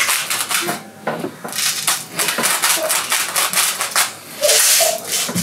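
Hand salt grinder being twisted over food, its mechanism crunching salt crystals in a quick run of gritty clicks, with a louder burst of grinding about four and a half seconds in.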